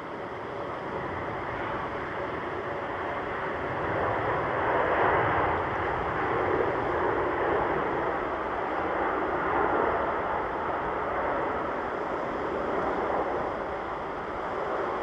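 Jet airliner engine noise, a broad rushing sound that swells about four seconds in, holds loud for several seconds, then slowly eases.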